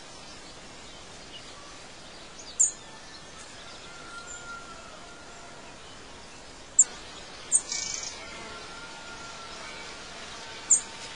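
Birds chirping over a steady outdoor background hiss. Four short, sharp, high chirps stand out, two of them close together past the middle, with a few softer whistled notes in between.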